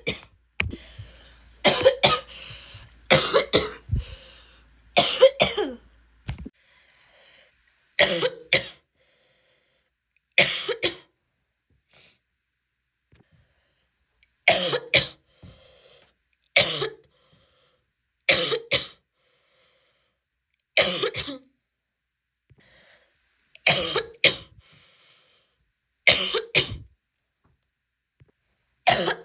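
A woman's harsh barking cough, in about a dozen short fits of one or two coughs, coming every two to three seconds.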